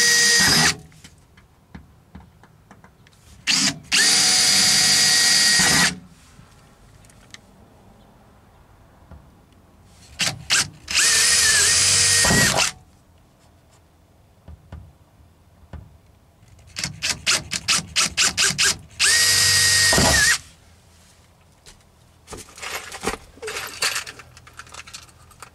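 Makita cordless drill running in short bursts of a second or two against the bus's sheet-metal inner wall panel, four times, with a run of quick on-off trigger pulses between the third and fourth. Faint light rattling follows near the end.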